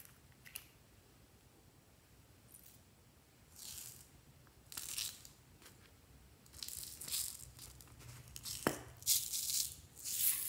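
Loose craft glitter and small plastic pieces rattling and sprinkling in several short, hissing bursts, the last as gold glitter pours from a small cup into a glass tray. One sharp tap comes a little before that last burst.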